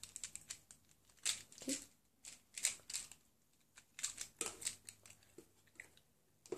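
Faint, irregular clicking and rattling of a bundle of plastic felt-tip markers knocking against one another as they are handled and rearranged in the hands, in several short clusters.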